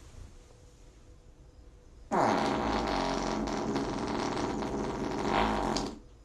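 A long, loud fart that starts suddenly about two seconds in with a falling pitch, then holds a steady raspy buzz for about four seconds before cutting off.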